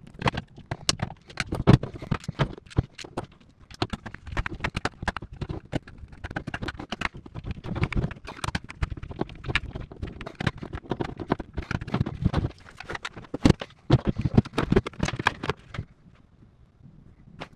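Rapid, irregular clicks, taps and knocks of plastic and metal parts being handled on a workbench: a plastic-cased power inverter, a screwdriver and wires and connectors being worked into a plastic box.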